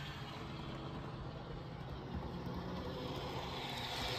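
HO scale MTH GP38-2 model locomotive running on track with its cars: a steady low motor hum with wheels rolling on the rails. The rolling noise grows louder near the end as the train comes closer. The locomotive is running normally, without the surging it is being tested for.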